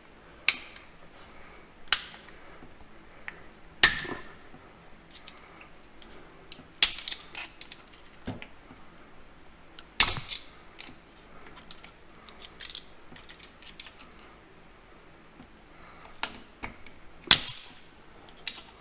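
Irregular sharp metallic clicks and clinks, about a dozen spread unevenly, the loudest a few seconds apart: hand tools working against the tractor's PTO shaft parts while a snap ring is taken off.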